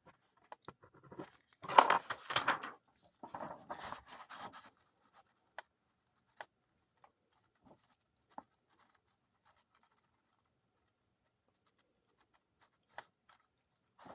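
Handling noise: a rustle lasting about three seconds near the start, followed by a few scattered single clicks.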